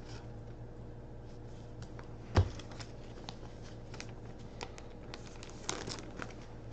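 Hockey trading cards being handled and shuffled on a table: light clicks and rustles, with one dull knock about two and a half seconds in.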